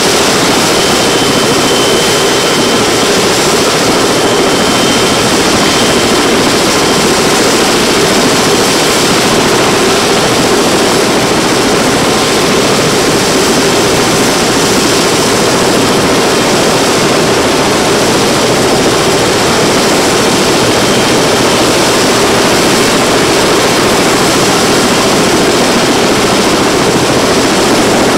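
Kawasaki BK117 B-2 helicopter running steadily on the ground with its main and tail rotors turning: the even sound of its twin turboshaft engines and spinning rotor blades.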